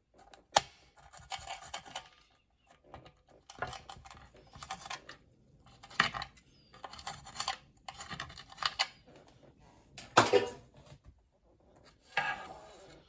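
A knife cutting lemons: a run of short scraping, sawing strokes about a second apart, with a sharp knock about half a second in and a louder one about ten seconds in.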